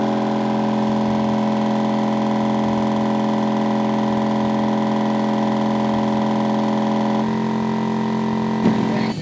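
Twenty Skar Audio MA-8 8-inch subwoofers playing a 40 Hz test tone in free air, heard as a loud, steady buzzing drone made up of the tone's overtones. The tone shifts slightly about seven seconds in, and a knock comes just before it stops near the end.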